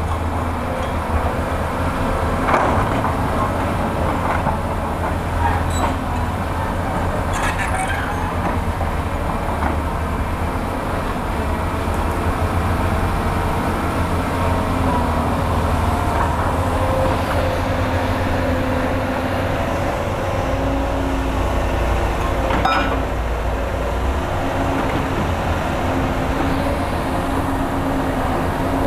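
Heavy excavators' diesel engines running in a steady low drone while they dig into a rock wall, with a few sharp knocks of the steel bucket on stone. A higher whine comes in past the halfway mark as the machines work under load.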